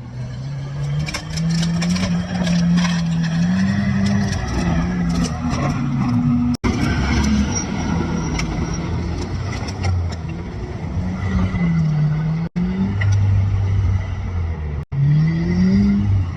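A vehicle engine running and revving, its pitch rising and falling, broken by abrupt cuts about six and a half, twelve and a half and fifteen seconds in.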